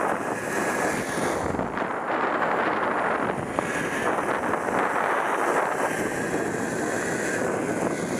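Zip line trolley rolling fast along the steel cable with a steady whir, mixed with wind rushing over the microphone.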